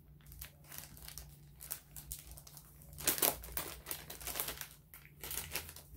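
Plastic soft-bait package being pulled open and handled, crinkling and crackling in quick irregular bursts, loudest about three seconds in.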